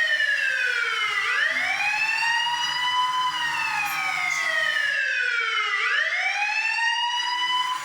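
Police car siren wailing, its pitch sliding slowly down and back up in long sweeps, about two cycles.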